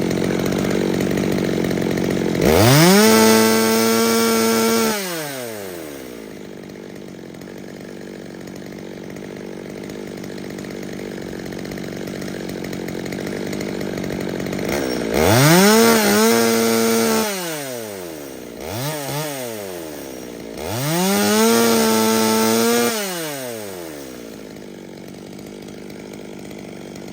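Holzfforma G111 two-stroke chainsaw idling and being revved to full throttle three times, each rev held for about two seconds before the pitch falls back to idle, with a short blip between the second and third. The carburettor has just been retuned, with the low-speed screw turned well down and the high-speed screw opened about half a turn, to cure rich running and smoking.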